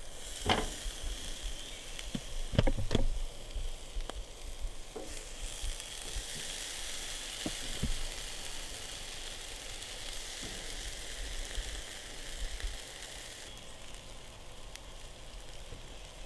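Steaks sizzling on a grill in a steady hiss, with a few sharp knocks in the first three seconds; the sizzle eases off near the end.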